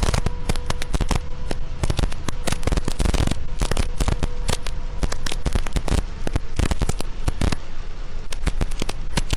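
Heavy rain hitting a vehicle's windshield and roof close to the microphone: a dense, irregular crackle of drop impacts.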